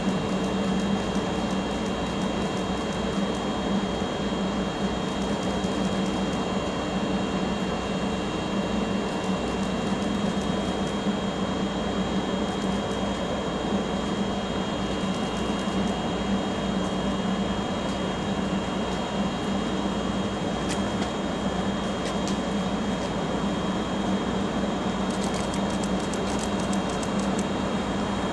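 Steady mechanical hum from a train standing idle at a station: a low drone with a steady high-pitched whine over it. A faint rapid ticking joins near the end.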